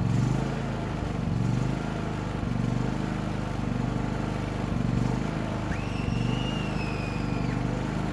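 Cummins Onan P4500i inverter generator's engine running just after its first push-button start. Its note swells and eases about once a second.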